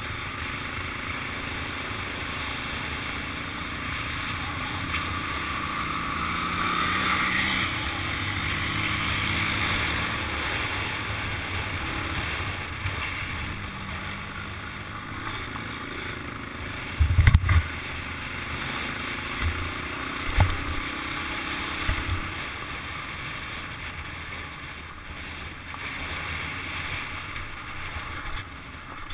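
Dirt bike engine running while riding a rough dirt trail, its pitch rising and falling with the throttle, with wind noise on the microphone. A few heavy thumps come about halfway through, the loudest a little past the middle.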